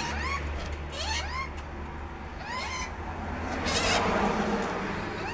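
Pet lorikeets chattering: short chirps that rise and fall, repeated, with two harsh screeches about one and four seconds in.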